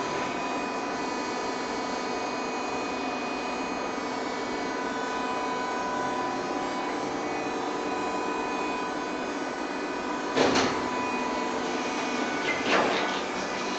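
Makplast 350 g plastic injection moulding machine running: a steady hum with several fixed tones from its hydraulic pump and motor. Near the end come two short loud bursts of noise about two seconds apart.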